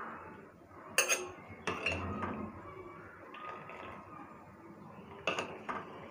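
A steel spoon clinking and scraping against a stainless steel mesh strainer and pot while boiled basmati rice is scooped in to drain. Sharp clinks come about a second in, again shortly after, and twice more near the end.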